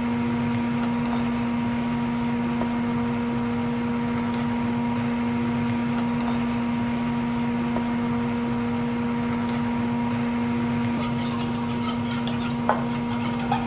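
Steady electric hum of a kitchen appliance switching on and running at one even pitch. Near the end, a few clinks of a utensil on a pan as the cabbage is stir-fried.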